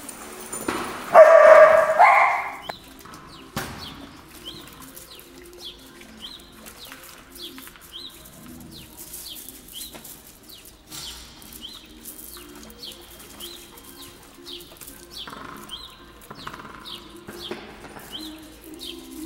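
A dog barks loudly about a second in. After that, a small bird chirps over and over, about two short high chirps a second.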